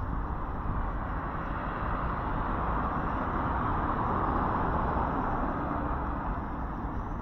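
Street ambience of road traffic: a steady noise that swells gradually through the middle, as from a vehicle going by, and eases off near the end.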